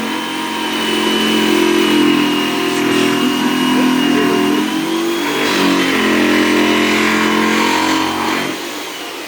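Electric jigsaw running while cutting, its motor pitch dipping and recovering as the blade meets load, then easing off near the end.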